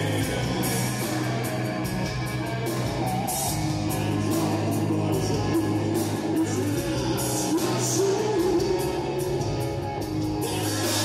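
Live rock band playing electric guitars and drums, with a man singing over it.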